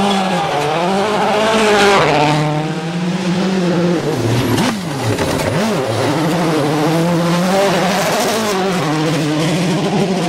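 Rally car engine at high revs, its pitch rising and falling as the driver shifts and lifts. About halfway through the pitch drops sharply and climbs again.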